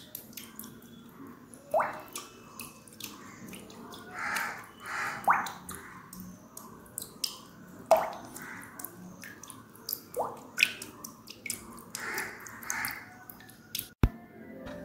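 Water dripping: irregular plinks, each rising quickly in pitch, among scattered small clicks, with one sharp click near the end.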